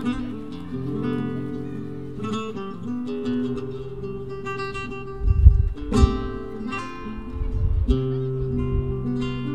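Flamenco-style acoustic guitar playing plucked notes and strummed chords over held low notes. About five and a half seconds in a heavy low thump sounds, followed at about six seconds by a sharp strike.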